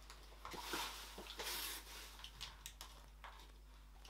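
Shredded packing paper rustling and crinkling inside a cardboard box as hands dig through it, in short irregular rustles with a few light taps.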